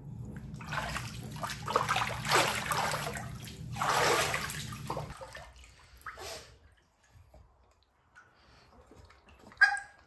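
Water sloshing and splashing in a shallow wooden tub as two dogs wade through it, over a steady low hum; both cut off about five seconds in. Near the end comes one short, sharp, high-pitched squeak.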